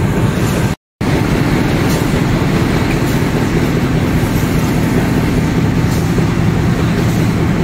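Corrugated-box making line running: a steady, dense machine rumble from the flexo folder gluer and its roller conveyors, with faint scattered ticks. The sound cuts out completely for a moment just under a second in, then resumes unchanged.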